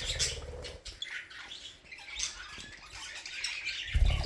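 Budgerigar chirping and chattering in quick, short high notes, with low rumbles of handling or fabric at the start and again near the end.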